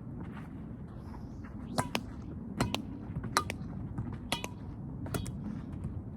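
Badminton rackets striking a shuttlecock in a quick exchange: sharp pops about every 0.8 seconds, five or so, over a low steady background.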